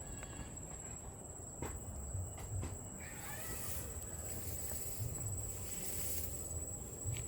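Outdoor ambience: a steady high-pitched whine under a light hiss, with a few soft clicks and taps.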